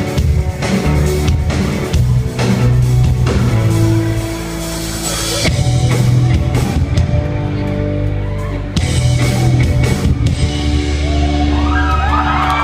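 Live rock band with electric guitars, bass and drums playing loudly through the end of a song. In the last couple of seconds, crowd cheers and whoops begin to rise over the final chord.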